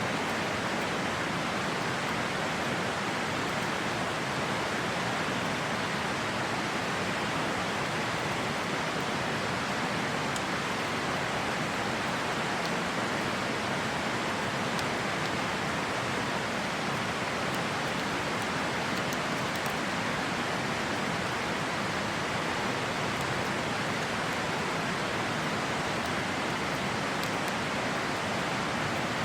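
A river rushing steadily, with a few faint crackles from a wood campfire.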